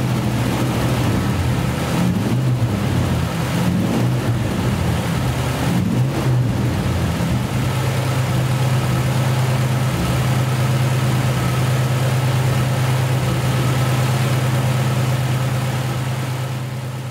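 1965 Plymouth Barracuda's 273 cubic-inch V8 idling with the hood open; the idle wavers a little for the first several seconds, then settles into a steady run and fades out near the end.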